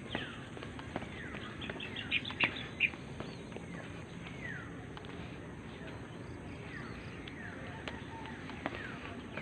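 Wild birds calling: downward-sliding whistled calls repeated every second or two, with a quick run of sharp chirps about two to three seconds in, the loudest part. A few light taps sound under them.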